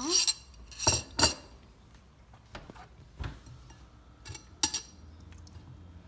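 A metal spoon scooping cream cheese out of a small metal pan into a ceramic bowl, clinking sharply against the pan and bowl: a few clinks in the first second and a half and two more a little past four seconds.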